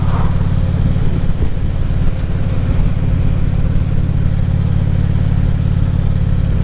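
Harley-Davidson Ultra Classic Limited's V-twin engine running steadily while cruising, with rushing wind.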